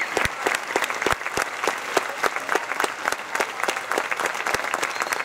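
Audience applauding: dense clapping from a large crowd, with one clapper close by standing out in louder single claps.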